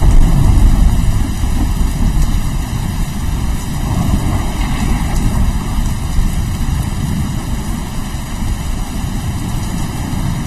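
Steady rain with rolling thunder: a deep rumble breaks in at the start, loudest in the first second, swells again about four seconds in, then rolls on more softly.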